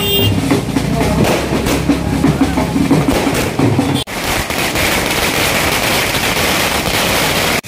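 Wedding-procession din: drumming and band music mixed with crowd voices. About four seconds in it cuts abruptly to a denser, noisier mix of the same.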